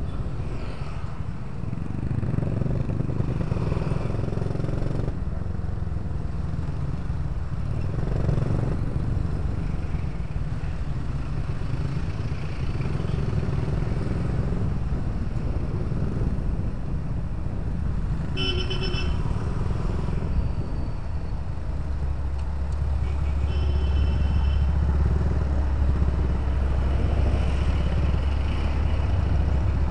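Motorcycle engine running at low speed in slow city traffic, with the steady noise of surrounding vehicles. A vehicle horn sounds briefly about two-thirds of the way in, and a shorter, higher beep follows a few seconds later.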